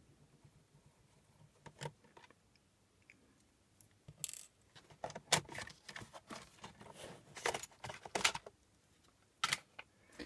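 Sharp clicks and clinks of plastic and metal as a screwdriver works the case and the optical-drive module is slid out of the side bay of a Getac S410 G2 rugged laptop. Mostly quiet at first, then a quick run of clicks from about four seconds in, with a last couple near the end.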